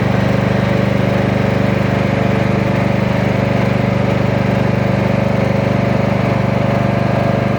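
A small engine running steadily at a constant speed, with a low, even hum.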